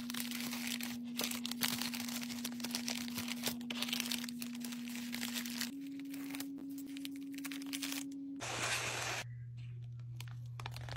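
Plastic bubble mailer crinkling and rustling as it is handled and its flap is folded and pressed shut. There is a louder rushing noise a little over eight seconds in. A steady low hum runs underneath and changes pitch twice.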